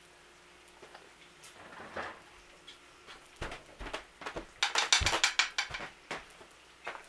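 A spoon scraping and clicking in a bowl of pancake batter while batter is dropped onto a cast iron griddle. About two-thirds through comes a quick run of clicks lasting about a second, loudest of all, with a few single knocks around it.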